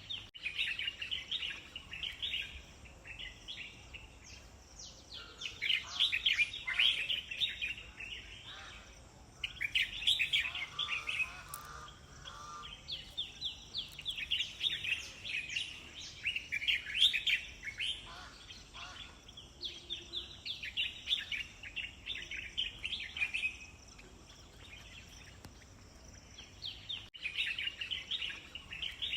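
Songbirds chirping in quick runs of short high notes, with brief lulls between runs, over a faint steady high hiss.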